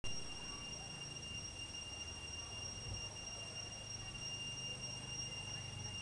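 Cicadas singing one continuous, high-pitched whine that holds steady without a break.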